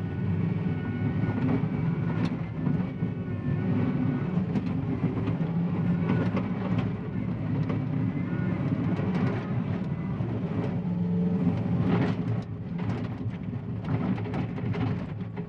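John Deere 333E compact track loader's diesel engine running under load while dozing clay, with short clanks and scrapes from the machine, most of them in the last few seconds.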